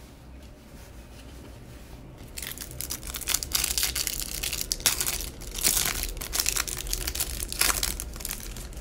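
Clear plastic wrapper of a Panini Prizm cello pack of trading cards being torn and peeled open by hand: a dense, crinkly run of plastic noise that starts about two and a half seconds in, with a few louder tears.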